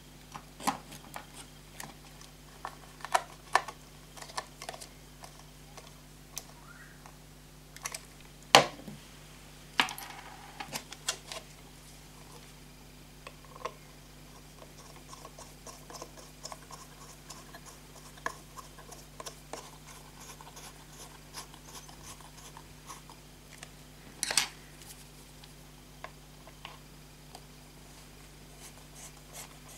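Clicks, taps and knocks of a plastic solar LED gutter light and its metal gutter bracket being handled and put together, a bolt being turned into the bracket, with two louder knocks and a run of quick light ticks in the middle.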